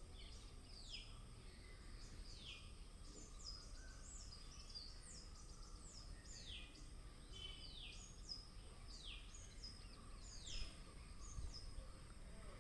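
Birds chirping faintly: many short, high calls that each fall in pitch, coming one after another every second or so.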